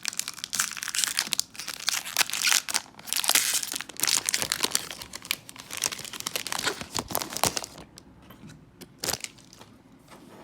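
Foil wrapper of a Topps baseball card pack being torn open and crinkled. The dense crinkling dies down after about eight seconds to a few scattered crackles.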